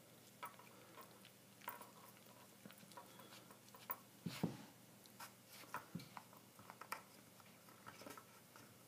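Faint scattered clicks and taps of a wooden dog puzzle toy's sliding discs as a Shiba Inu puppy noses and paws them around hunting for treats, with one brief squeak near the middle.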